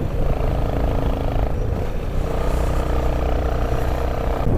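Motorcycle engine running steadily while riding, with the pitch shifting slightly as the throttle changes, over low wind rumble on the microphone.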